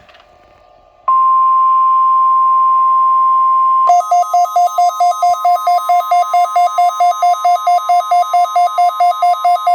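NOAA Weather Radio 1050 Hz warning alarm tone, a steady pure tone starting about a second in. About three seconds later a louder, buzzier electronic alarm alternating between two pitches about four times a second joins it and keeps going.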